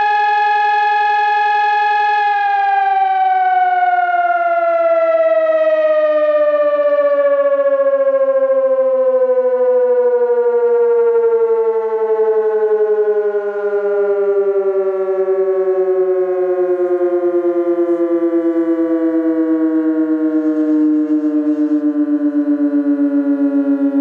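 Electronic high-performance warning siren sounding during a siren test: a loud tone holds steady for about two seconds, then falls slowly and evenly in pitch for about twenty seconds before cutting off abruptly near the end.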